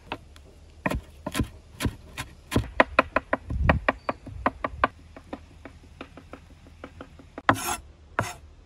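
Kitchen knife chopping fresh greens on a wooden cutting board: a rapid, uneven run of sharp knocks. Two short scrapes come near the end.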